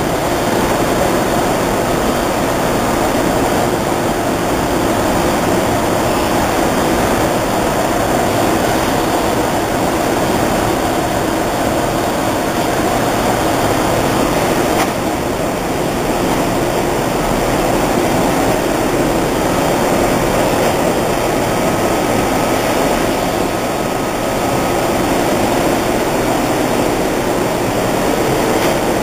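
A large M&R multi-colour screen printing press running in production: a loud, steady mechanical whir and rush of air with no distinct strokes.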